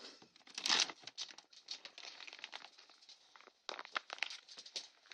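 Dog food bag crinkling and rustling as a hand rummages in it: a dense run of crackles, with a louder rustle about a second in.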